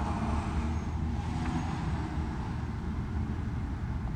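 Steady low outdoor rumble with no speech, the kind made by road traffic or wind, a little stronger in the first couple of seconds.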